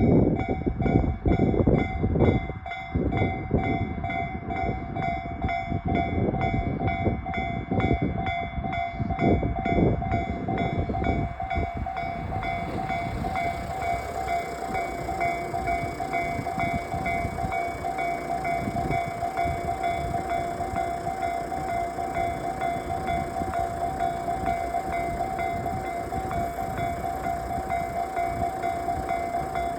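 Japanese level-crossing alarm ringing its repeating electronic bell while a train passes over the crossing. The train's rumble and wheel clatter are loudest in about the first twelve seconds, then ease to a steadier, quieter running noise under the bell.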